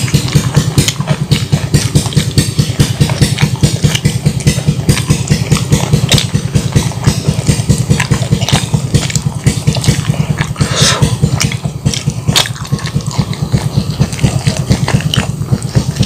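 A small engine idling with a steady, fast-pulsing low throb. A few brief clicks and smacks from eating by hand sound over it.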